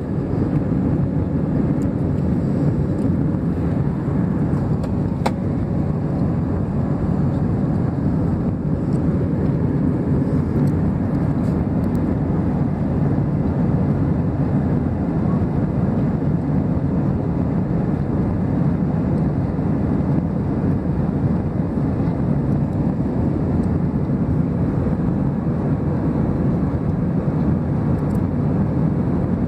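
Steady cabin noise of a jet airliner in flight: the low, even rush of its engines and the airflow over the fuselage, heard from a passenger seat inside the cabin. A faint tick comes about five seconds in.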